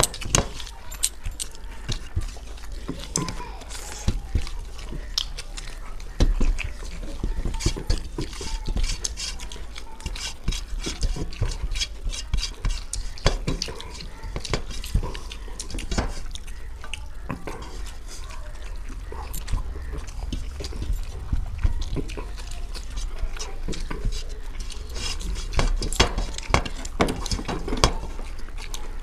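Fingers mixing rice and egg-curry gravy and scraping it up off stainless steel plates, with close-miked wet chewing: a continuous run of small, irregular clicks and scrapes.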